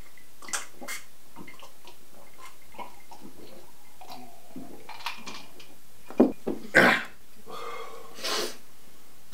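Men swallowing a whisky and Coke in one go, then, just after six seconds in, a few sharp coughs and a long heavy breath out as the strong drink goes down.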